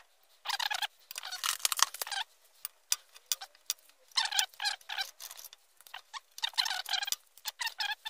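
A screwdriver scraping and squeaking as it digs soft polyurethane that never cured out of an engine mount bush. The scraping comes in three bursts of a second or two each, with small clicks between them.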